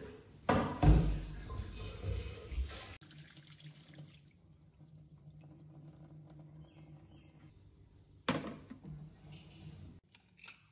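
Water running and splashing into a steel kitchen sink as grain is rinsed in an aluminium pressure cooker and the rinse water is poured off. The splashing is loudest in the first few seconds, and there is a sharp metallic clank about eight seconds in.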